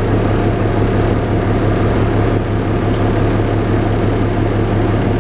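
Cummins ISL9 diesel engine of a New Flyer D60LFR articulated bus idling, heard from inside the bus as a steady low hum.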